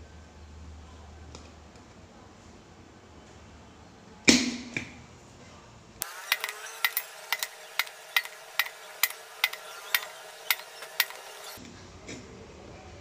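Small metal tool working at the lid of an aluminium drink can: one sharp metallic click about four seconds in, then, a couple of seconds later, a run of about a dozen evenly spaced clicks, a little over two a second.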